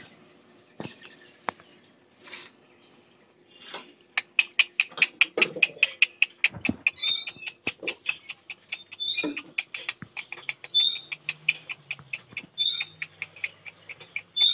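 A small animal's high, sharp chirping call, repeated rapidly and evenly about four times a second from about four seconds in, with a few dull knocks in between.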